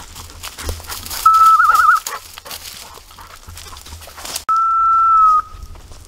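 Whistled signals to a hunting dog: about a second in, a short held note breaking into a warbling trill, then past the middle a longer steady note that dips slightly at its end. Dry leaves crackle underfoot and wind rumbles on the microphone.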